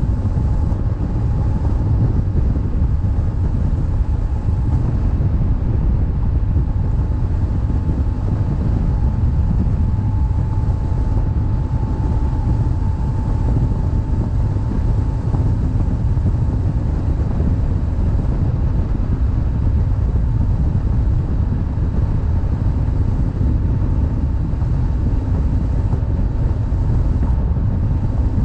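Wind rushing over the microphone of a BMW GS boxer-twin motorcycle riding at a steady speed, over the low, even drone of the bike.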